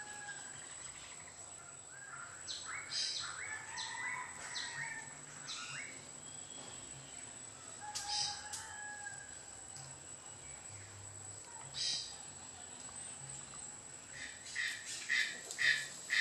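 Birds calling with scattered short chirps and whistles, ending in a quick run of about five repeated chirps, over a thin steady high-pitched whine.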